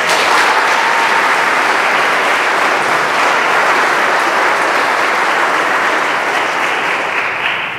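Audience applauding, a dense steady clapping that starts at once and dies away near the end.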